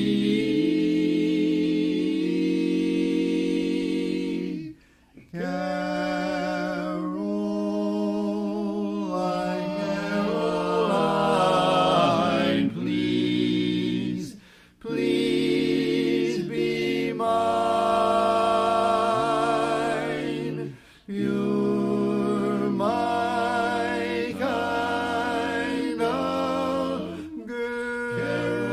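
Barbershop quartet singing a cappella in close four-part harmony, the phrases broken by three short pauses.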